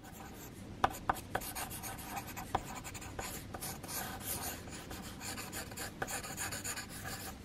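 Pencil drawing on paper: quick, scratchy sketching strokes. A few sharp ticks stand out about a second in and again at about two and a half seconds.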